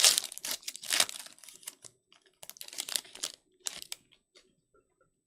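Plastic wrapper of a 2024 Panini Donruss Baseball hobby pack being torn open and crinkled in several quick, noisy bursts that die away after about four seconds.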